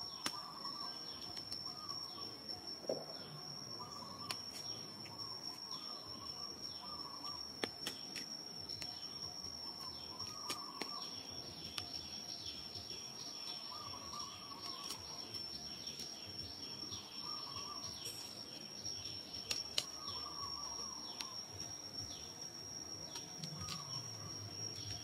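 Outdoor ambience: a steady high-pitched insect drone with a bird calling over and over in short chirping phrases every couple of seconds. Scattered small clicks run through it.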